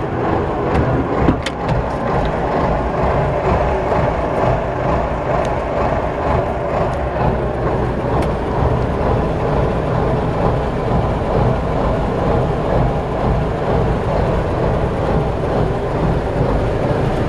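A boat's engine runs steadily with a low drone and an even fan-like hiss, heard from inside the cabin. A few light knocks sound near the start and about eight seconds in.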